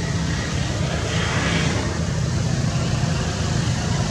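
Steady low rumble with an even hiss of outdoor background noise, brightening briefly about a second in.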